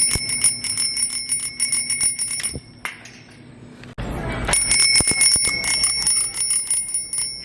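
A bell ringing rapidly and continuously, like a trilling alarm bell. It stops about two and a half seconds in and starts again about four and a half seconds in.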